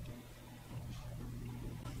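Quiet handling noise as a plastic guard on a metal bracket is fitted against a Pfaff 1245 industrial sewing machine: faint light rubbing and a few soft ticks over a steady low hum.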